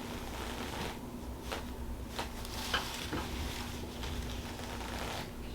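Steady low hum with a faint steady tone, and a few soft, scattered clicks and rustles from hands working on a person's neck; no loud joint crack.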